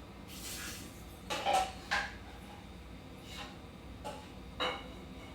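Hard kitchen items being handled: four sharp clinks and knocks, each with a brief ring, after a soft rustle at the start.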